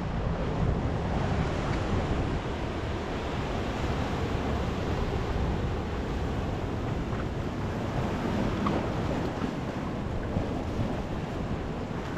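Ocean surf washing against a rocky shoreline, with wind buffeting the microphone in a steady low rumble.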